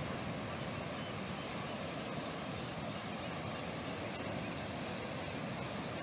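Ocean surf breaking on the beach, a steady rush without pauses, mixed with wind.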